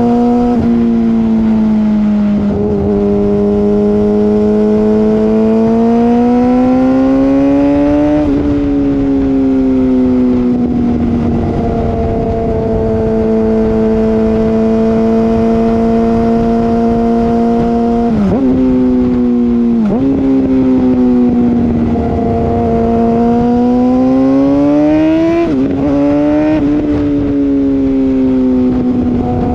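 Yamaha R6 600 cc inline-four running through an M4 Street Slayer exhaust with the muffler box deleted, recorded close to the exhaust while riding. The note climbs slowly, holds steady for several seconds mid-way, and dips sharply in pitch a few times, about eight, eighteen and twenty-five seconds in.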